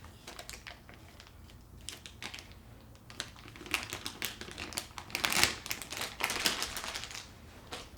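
Small fidget toys and their plastic packaging being handled: irregular light clicks and taps, busier in the second half, with a couple of short rustles.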